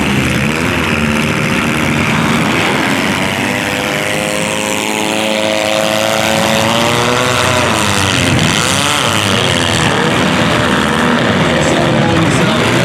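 Demolition derby car engines running and revving together, several overlapping engine notes rising and falling in pitch.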